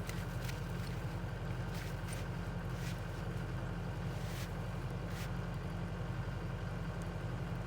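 Skid steer engine running steadily with a low drone, with a few short ticks and clanks over it in the first five seconds.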